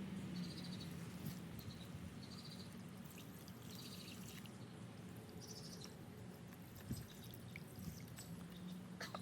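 Water from a garden fountain splashing and trickling steadily, with a low hum under it. Repeated short, high, buzzy chirps come and go over it.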